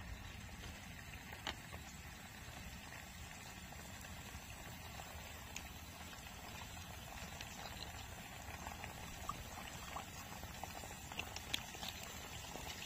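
Faint steady sizzle of food cooking, with scattered small pops and ticks.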